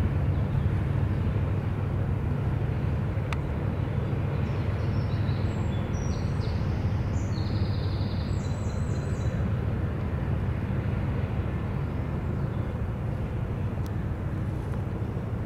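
Low, steady drone of a passing loaded inland container barge, with the rush of water at its bow.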